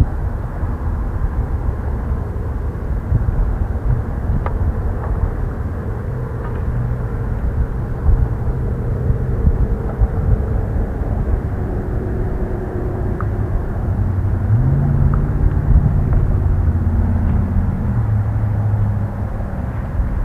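Wind buffeting the microphone with a loud, low, fluttering rumble. A low droning hum joins in about two-thirds through, rising slightly in pitch, then fades near the end.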